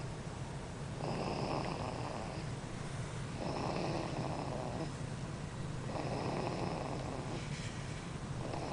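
Four-month-old baby snoring loudly in sleep: about four rasping breaths in a slow, even rhythm, one every two and a half seconds.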